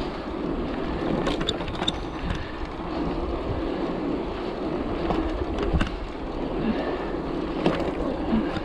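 Wind rushing over the microphone and knobby tyres rolling on asphalt as a Gios FRX downhill bike coasts down a street, with a few sharp clicks and rattles from the bike.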